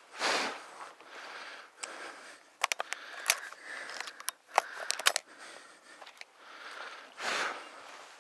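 A person breathing heavily close to the microphone, with two loud puffing breaths, one right at the start and one about seven seconds in. In the middle comes a quick run of sharp clicks and taps.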